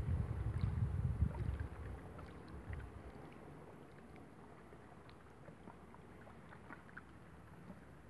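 Wind buffeting the microphone, a low uneven rumble for about the first two seconds that then dies down to a faint steady hiss with scattered small ticks.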